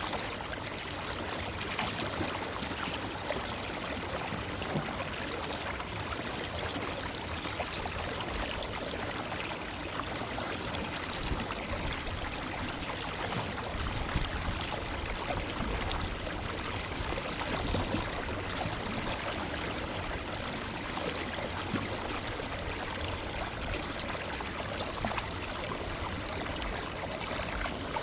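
Forest river flowing: a steady, unbroken rush of running water with small irregular gurgles.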